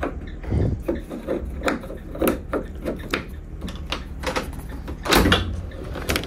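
Cargo van rear door being worked by hand: a run of clicks and knocks from the latch and door, with a heavier thump a little after five seconds in.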